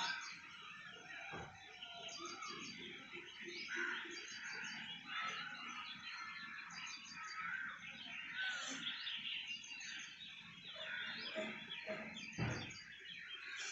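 Many small birds chirping and trilling together in a busy morning chorus. A single dull thump is heard near the end.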